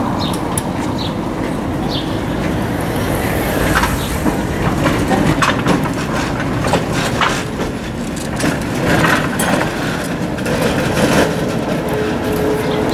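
Historic Berlin tramcar 2990 of the Große Berliner Straßenbahn running past on its rails, with a steady rumble and irregular clicks and knocks of the wheels over the track. A steady whining tone joins in about ten seconds in.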